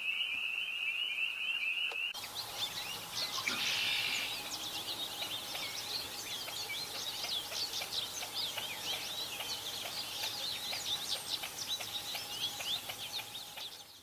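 Male American goldfinch singing: a fast, continuous run of high twittering chirps that starts about two seconds in, after a steady high-pitched tone.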